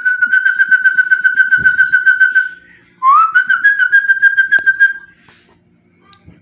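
Two long warbling whistles on one steady high pitch, each with a fast flutter of roughly eight pulses a second; the first lasts about two and a half seconds, and the second, about half a second after it, opens with a quick upward slide and lasts about two seconds.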